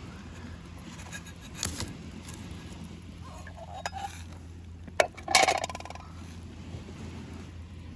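A few sharp metallic knocks and clinks of cookware, the loudest a short rattling clatter about five seconds in, over a steady low rumble.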